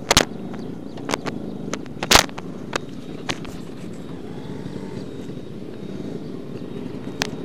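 Yamaha two-stroke single-cylinder motorcycle engine running steadily, with a handful of sharp knocks over it, the loudest about two seconds in and one more near the end.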